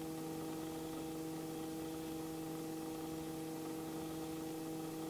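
Robinson R44 helicopter in cruise flight heard through the headset intercom: a steady hum of several held tones over an even hiss.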